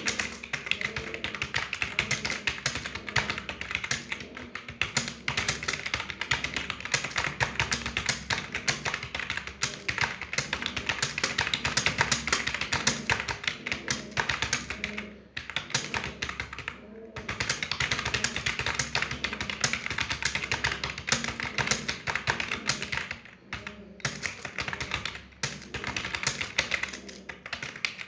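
Fast touch-typing on a computer keyboard, about 72 words per minute: a dense, continuous patter of key clicks, with two short pauses, one about halfway and one near the end.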